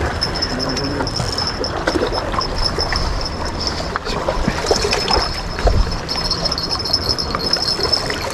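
Sea water washing and splashing against breakwater rocks, with wind rumbling on the microphone. A thin high-pitched whine comes and goes, and there are a few small clicks.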